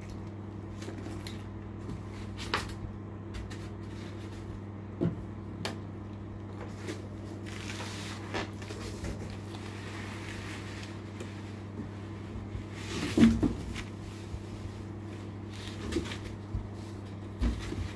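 Scattered clicks and knocks from unpacking and handling the parts and packaging of a PCP air compressor, the loudest about thirteen seconds in, with a brief rustle partway through. A steady low hum runs underneath.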